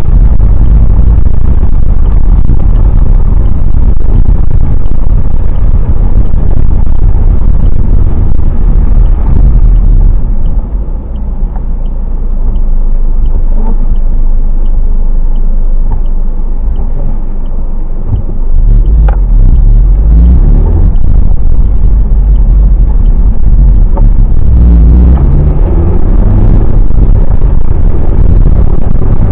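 Car interior noise picked up by a dashcam while driving on a wet road: a loud, steady low rumble of engine and tyres. About ten seconds in it quietens for several seconds, with a regular faint ticking about twice a second, then the rumble comes back at full level.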